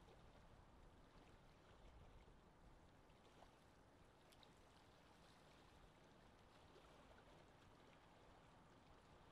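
Near silence: a faint, steady noise floor with no distinct sounds.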